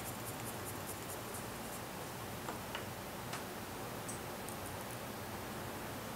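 Faint, quick ticking and light rustling of a paper quilling strip being wound tight on a slotted quilling pen, then a few scattered small clicks as the coil is handled between fingers, over a steady low room hiss.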